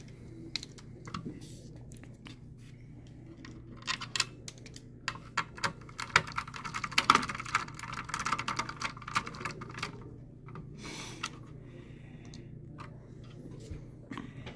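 Hand screwdriver driving small screws into a mini PC's cooling fan mount: a run of light clicks and ticks of the tool and screws on the parts, thickest in the middle few seconds.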